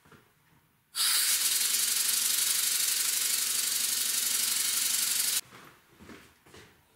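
Stuart No.1 model steam engine running on compressed air: a loud, steady hiss of air through the engine, starting by itself about a second in and cutting off suddenly a little over four seconds later.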